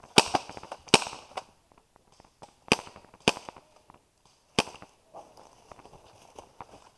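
Airsoft guns firing single shots: about five sharp cracks at uneven intervals over the first five seconds, the first two loudest, with a few fainter clicks between them.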